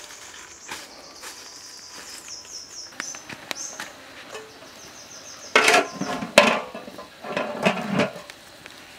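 An insect chirring high and steady through the first few seconds, with short repeated pulses, then a few loud knocks and rustles near the end.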